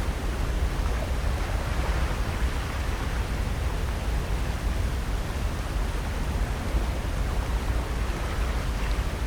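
Steady wash of ocean surf mixed with a low rumble of wind on the microphone, even throughout with no distinct events.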